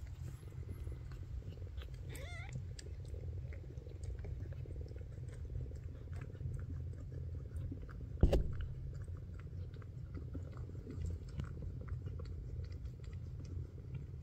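Newborn Maine Coon kitten mewing once, briefly, about two seconds in, over many soft mouth clicks and smacks from the cats and a low steady rumble. A single sharp thump about eight seconds in is the loudest sound.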